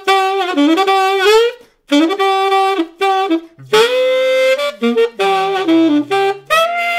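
Saxophone playing a short soul/pop lick with a straight, bright tone and hard-tongued attack: clipped, punchy notes, a brief break about two seconds in, then a longer held note with a rough, growly undertone that slides downward before more short notes.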